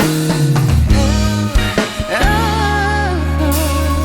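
Pop-rock band playing a song, with guitar and bass under a held, wavering melodic line between sung phrases.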